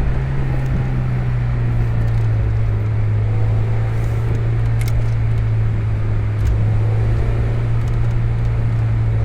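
1991 Mazda Miata's 1.6-litre four-cylinder engine running at steady revs while driving, a constant low drone over road and tyre noise.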